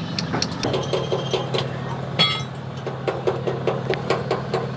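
Rapid hammer blows on steel leaf spring, about four a second, with one harder strike about two seconds in that rings. A steady engine hum runs underneath.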